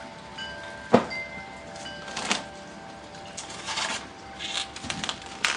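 Wind chimes ringing lightly and dying away, with a sharp knock about a second in, then scattered clicks and short rustling handling noises.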